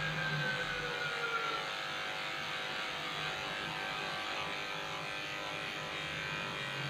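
Cordless electric pet clipper running steadily, its blade shaving through a puppy's coat.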